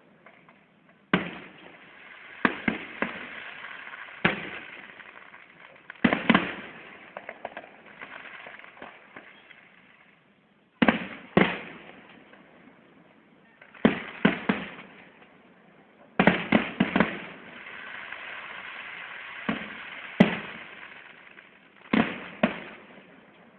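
Fireworks display: about a dozen loud bangs of bursting shells at irregular intervals, some in quick pairs. A crackling fizz fills several of the gaps between bursts.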